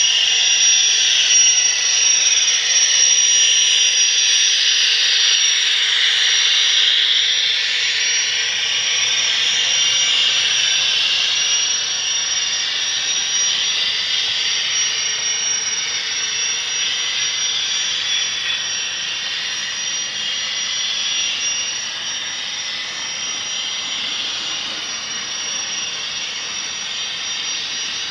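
Model Union Pacific 8500 gas-turbine locomotive's sound system playing a steady jet-like turbine whine with a thin high tone. It is loudest in the first several seconds and slowly fades as the train pulls away.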